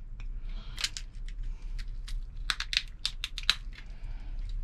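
Cooked brown crab shell cracking and snapping as the leg knuckles are broken out of the body by hand: a run of sharp, irregular cracks and crunches.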